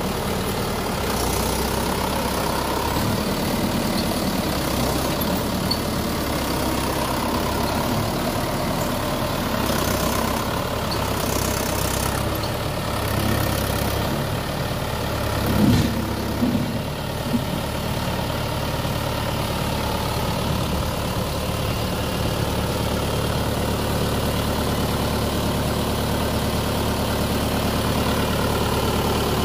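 Mahindra Yuvo Tech tractor's diesel engine running steadily as it pulls a loaded trailer through mud, with a brief louder surge a little past halfway.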